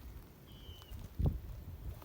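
A short, thin bird note that falls slightly in pitch, about half a second in, followed by a dull low thump, the loudest sound, a little past the one-second mark, over a low rumble.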